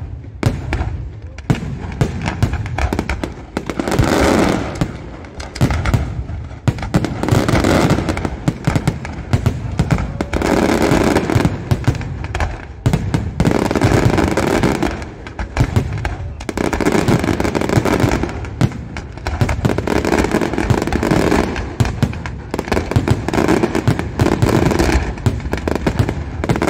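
Fireworks display: a dense, continuous run of aerial shell bursts and crackling, loud throughout, in salvos that swell and ease every two to three seconds.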